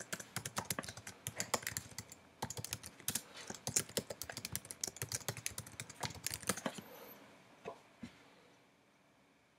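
Typing on a computer keyboard: fast runs of keystrokes for about six and a half seconds, then two single key taps and it stops.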